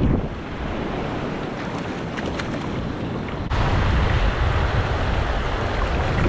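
Small waves washing up the sand, with wind on the microphone. About halfway through the sound steps up and gets louder and rougher.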